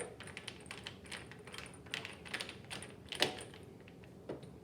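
Small, irregular clicks and ticks of a screwdriver driving motherboard screws into a PC case, with a sharper click about three seconds in.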